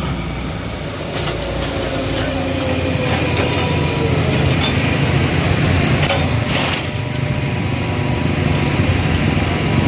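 Vehicle engines running on a steep, rough dirt road, from a motorcycle and a small truck working uphill. The sound grows louder over the first half.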